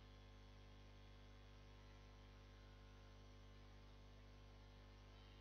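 Near silence: only a faint, steady electrical hum from the recording.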